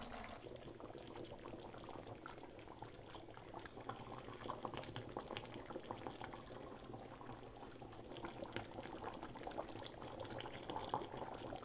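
Thick tomato-based vegetable curry boiling in a steel kadai, a faint continuous crackle of small bubbling pops.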